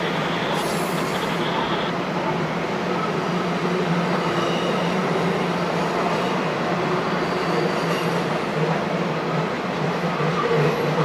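Empty intermodal spine cars and trailer flatcars of a freight train rolling past, a steady rumble of wheels on rail. Faint high-pitched wheel squeals come and go as the cars take the curve.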